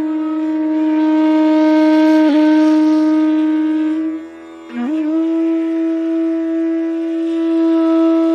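E-base PVC fibre bansuri (bamboo-style Indian transverse flute without a lip-plate) playing a slow phrase: one long held note with a small ornament midway, a brief breath, then a new note that slides up into another long held tone.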